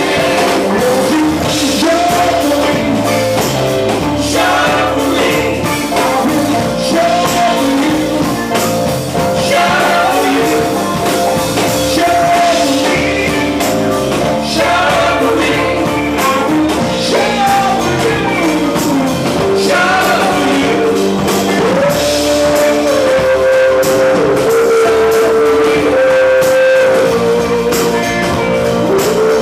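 Live band playing rock music, with a singer over drums and held instrument notes.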